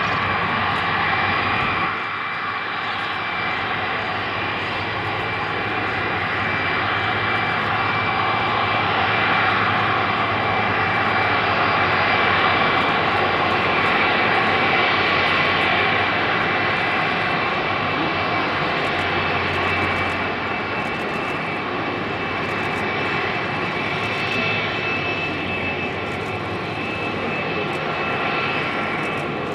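Boeing 747-400F freighter's four Rolls-Royce RB211 turbofans running at taxi power as the jet taxis past, a steady engine noise with high whistling tones over it.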